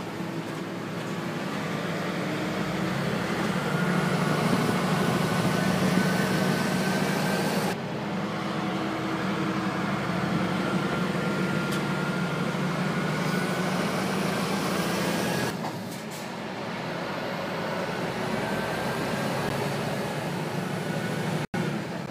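Lorry engine and road noise heard from inside the cab while driving, a steady low hum with a faint whine that slowly rises in pitch. The sound jumps in level twice, about a third and two thirds of the way through, and drops out for an instant near the end.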